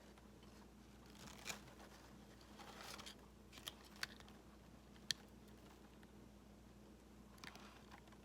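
Faint rustling and crinkling of a sample bag of products being handled and opened, with a few short scrapes and one sharp click about five seconds in.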